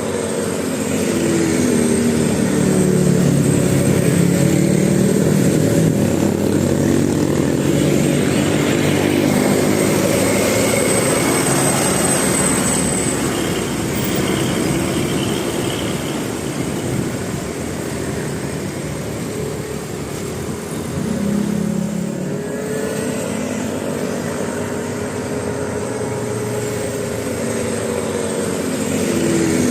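Road vehicle engines running, their pitch rising and falling as they rev and pass, over steady traffic noise.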